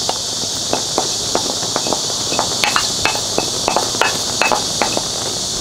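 Wooden spoon tapping and scraping against a ceramic bowl as dried chili powder is knocked out into a pan, giving irregular sharp clicks a few times a second over a steady high hiss.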